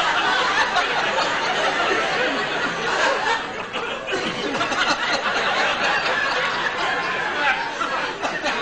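Studio audience laughing, a dense, steady wash of many voices at once.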